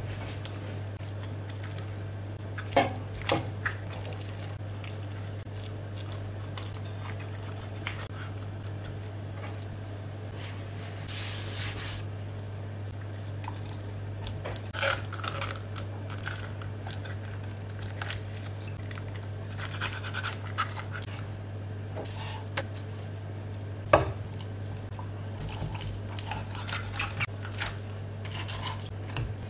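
Knife filleting a European sea bass on a plastic cutting board: scattered sharp knocks of the blade and fish against the board, the loudest about three seconds in and again near 24 seconds, with soft cutting and scraping between, over a steady low hum.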